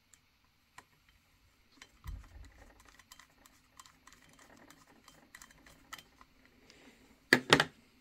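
Light, scattered clicks and taps of a screwdriver and small metal parts as a screw is fitted into a Lionel toy steam locomotive. There is a dull bump about two seconds in and two sharper clacks near the end.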